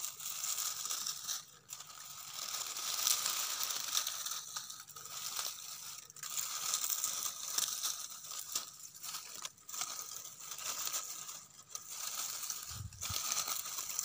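Dry leaves and twigs crackling and crunching as a hand pulls apart an old, broken-down spotted dove nest, in irregular bursts with short pauses.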